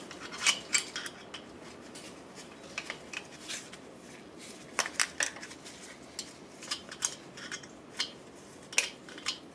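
Steel open-end wrenches clinking against each other and against the adjuster nuts of an adjustable pushrod as the nuts are worked tight. The metallic clicks come one at a time or in pairs, scattered unevenly.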